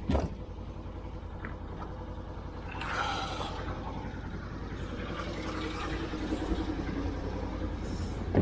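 An engine running steadily with a low rumble, with a sharp click at the very start and a short rustling burst about three seconds in.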